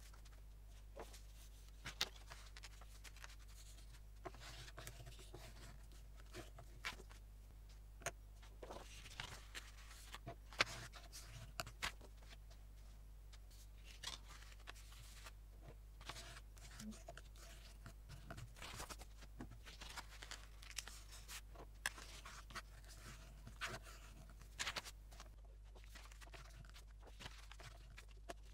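Sheets of paper being handled and squared up by hand: scattered rustles, light taps and a few sharper knocks of paper on the work surface, over a steady low hum.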